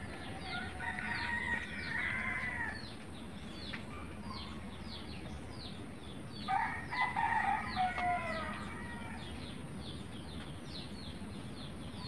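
A rooster crowing twice, each crow about two seconds long and dropping in pitch at the end. Short, high, falling peeps repeat rapidly throughout.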